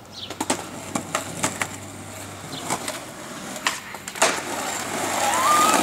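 Skateboard on pavement: a run of sharp wooden clacks from the deck and wheels, with a loud landing clack about four seconds in as the skater drops off a curb. Rolling wheel noise then grows louder toward the end.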